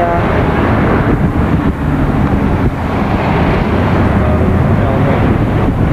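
Steady engine and road noise of a car driving along a town street, heard from inside, with a dense low rumble throughout.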